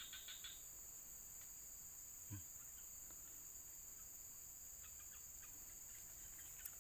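Steady high-pitched insect chorus, with a few faint clicks near the start and near the end and a soft thump about two seconds in.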